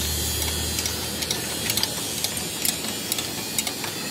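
Light metallic clicks and taps from hand tools working on a truck diesel engine's cylinder head, coming irregularly a few times a second, over a steady hiss.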